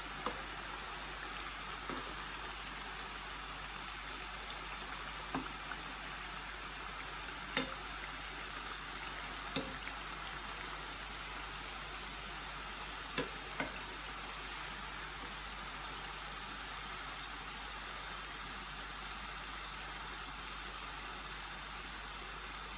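Plain-flour dough pastries deep-frying in hot oil: a steady sizzle, with a few sharp ticks scattered through the first half.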